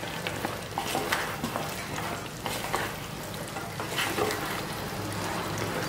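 Fried petha sticks being stirred with a wooden spatula in thick, bubbling sugar syrup in a nonstick pan over the flame: a steady soft sizzle with scattered light scrapes and taps of the spatula as the syrup cooks onto the sticks as a coating.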